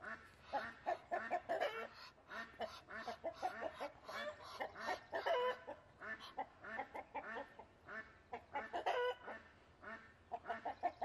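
Chickens calling in a rapid run of short clucks, with a couple of longer, higher squawks about halfway through and near the end.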